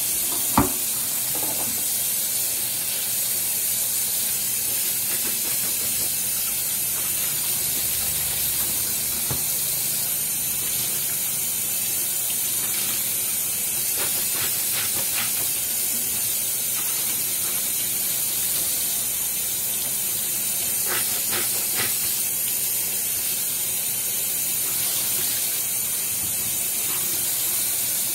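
Kitchen faucet running a steady stream into a stainless steel sink, a bright, even hiss, while a gloved hand rinses and wipes the basin under it. There is a sharp knock about half a second in and a few faint taps later on.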